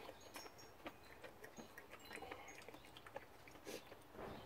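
Near silence with the faint sounds of people eating soup: small clicks of chopsticks against ceramic bowls, soft slurping and chewing, with a few faint high bird chirps.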